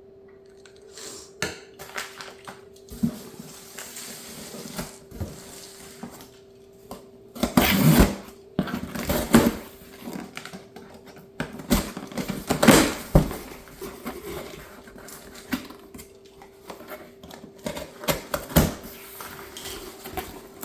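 Packaging being handled during an unboxing: rustling and crinkling of plastic and cardboard, with scattered knocks and clatters and a few louder bursts of rustling. A faint steady hum runs underneath.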